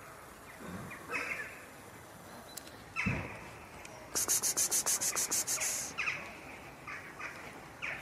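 Crows cawing several times over an outdoor background, with a low thump about three seconds in. Between about four and six seconds a fast, high-pitched rattle of about eight clicks a second is the loudest sound.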